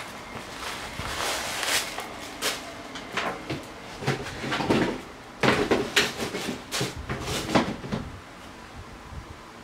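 Cardboard shoe box being handled on a desk: rustling and a series of short knocks as the lid and box are moved and set down, the loudest knocks about five to eight seconds in.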